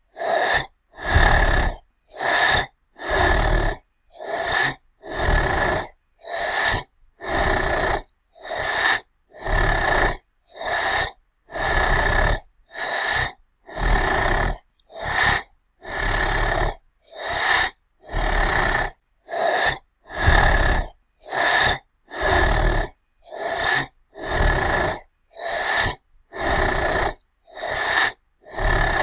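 Angry monster breathing sound effect: a long run of heavy breaths, about one a second, each followed by a short silence.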